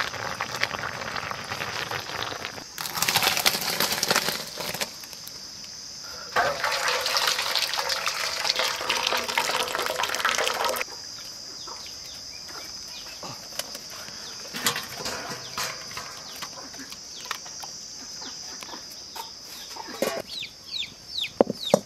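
Hot water and boiled taro stalks poured from a pan into a bamboo basket strainer: two spells of pouring and splashing, the longer about six to eleven seconds in, then water trickling and dripping through the basket. Chickens cluck in the background.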